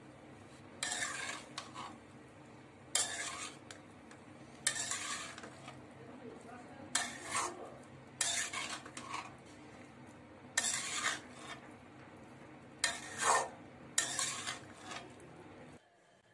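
Spatula stirring and tossing penne pasta in a frying pan, about eight scraping strokes one to two seconds apart over a faint steady hum, stopping suddenly near the end.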